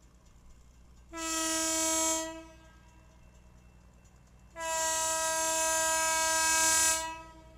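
Horn of a yellow self-propelled rail car sounding for a grade crossing on one steady note: a blast of about a second, then a longer blast of well over two seconds, the short-then-long close of the crossing signal.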